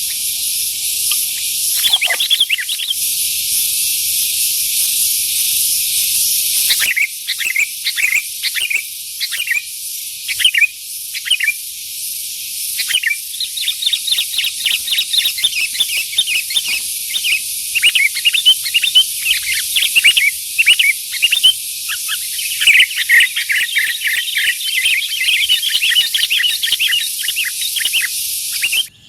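Sooty-headed bulbuls (kutilang) calling in short, quick notes. The notes are sparse at first and become a busy, rapid chatter from about halfway on, over a steady high hiss.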